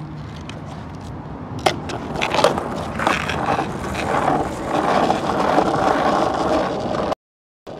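Skateboard wheels rolling over rough asphalt, with a couple of sharp clacks about two seconds in; the rolling grows louder and then cuts off abruptly near the end.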